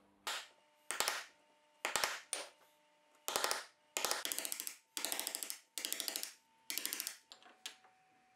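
Hammer and chisel cutting shallow hinge recesses into a plywood table: about ten short bursts of rapid tapping and scraping, with quiet gaps between them.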